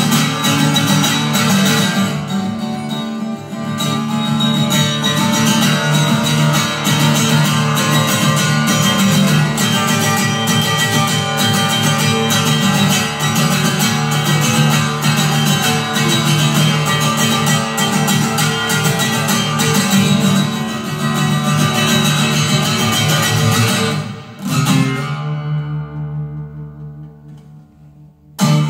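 Solo acoustic guitar, picked and strummed in a busy continuous passage. About 24 seconds in it settles onto a ringing chord that slowly fades, and a last chord is struck near the end.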